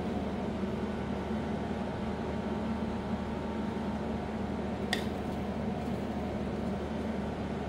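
Steady mechanical hum, like a fan or kitchen appliance running, with one sharp click about five seconds in.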